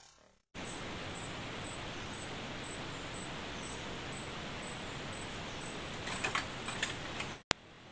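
Steady hiss of forest ambience with a faint, high insect chirp repeating about twice a second. A few rustles come near the end, then the sound cuts off suddenly.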